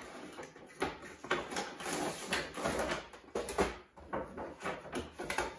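Cardboard and plastic packaging of an action-figure box being handled, with irregular rustling, scraping and small clicks as the plastic blister tray is slid out of the cardboard.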